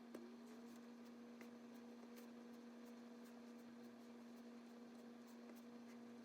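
Near silence with a steady low electrical hum and a few faint ticks.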